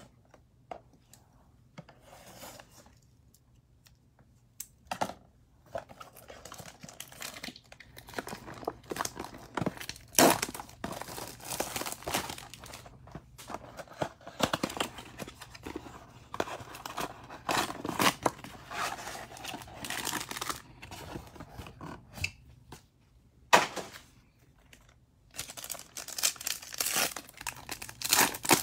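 Plastic shrink wrap on a trading-card blaster box being cut with a pocket knife and torn off, crinkling and tearing for long stretches, then the cardboard box opened. A sharp click comes about two-thirds of the way through, and near the end a foil card pack crinkles as it is torn open.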